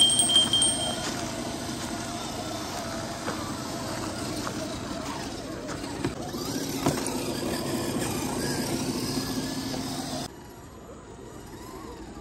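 Electric RC rock crawlers running along a dirt trail, their motors and gear drivetrains whining steadily with small changes in pitch as the throttle varies. A brief high electronic chime sounds at the very start, and the level drops suddenly about ten seconds in.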